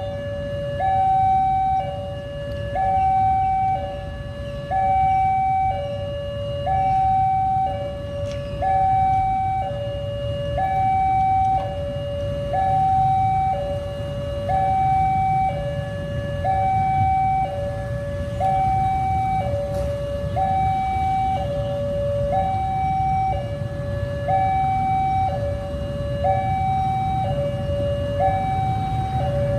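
Railway level-crossing warning alarm sounding a steady two-tone signal, switching between a higher and a lower tone about once a second: the warning that a train is approaching. Idling traffic rumbles underneath.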